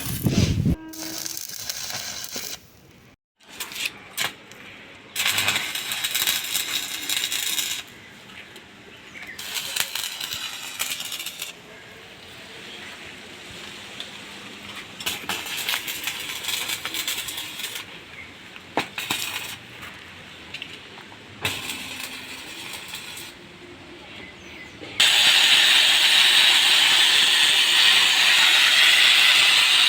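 Metalworking on a hand cart: scattered metal clinks and scraping, then a power tool running steadily and loudly over the last few seconds.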